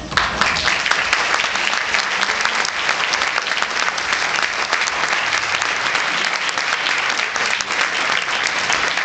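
Audience applauding, breaking out suddenly and continuing as dense, steady clapping.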